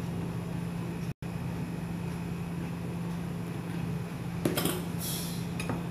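Steady low electrical hum from the running kitchen cooktop or its fan, with the sound dropping out for a moment about a second in. A few short rustles and a light clink of toppings being handled come near the end.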